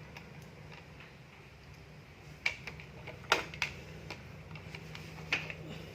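A few sharp clicks and taps spread through the middle seconds as multimeter test probes are handled and touched to a fridge's power-plug pins and wire during a continuity check. A faint low hum runs underneath.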